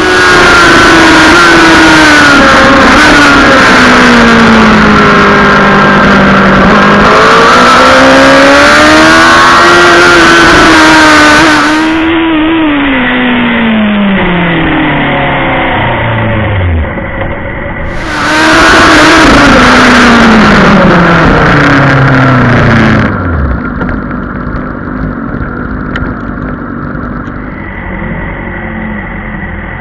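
Racing superbike engine at high revs with wind rush. The engine note climbs and falls through the gears, then twice drops away steeply as the bike slows hard. Near the end it settles to a quieter, uneven low-rev engine rumble.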